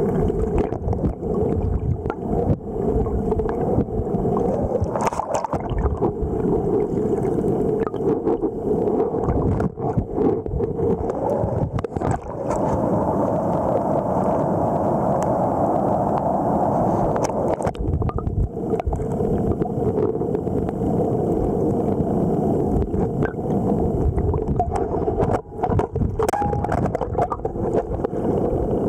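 River water gurgling and washing, heard muffled through a submerged camera, with frequent short knocks throughout.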